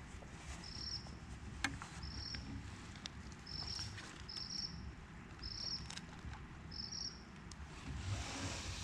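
An insect, cricket-like, calling in short high chirps roughly once a second. A small campfire gives a couple of sharp pops about two and six seconds in.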